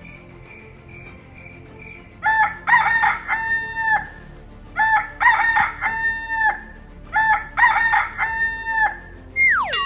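A rooster crows three times, each crow about two seconds long and ending on a long held note, after a couple of seconds of faint regular chirping. Near the end a quick whistle falls steeply in pitch.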